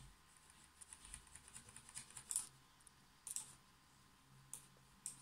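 Faint, irregular taps and clicks on a laptop keyboard: a loose cluster in the first couple of seconds, then a few single clicks.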